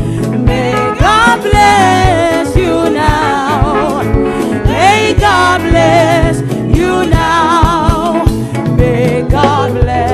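A woman singing a song with wavering vibrato over backing music with a steady low drum and bass beat.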